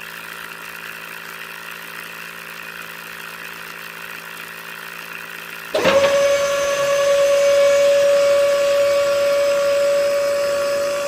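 Small electric motor of a homemade toy machine running steadily. About six seconds in it switches to a louder, steady high whine.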